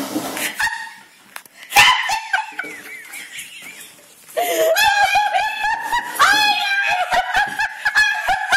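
Hearty human laughter, patchy at first, then loud and nearly continuous from about halfway through.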